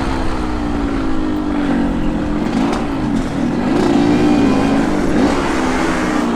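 A motorcycle engine running, its pitch rising and falling with the throttle.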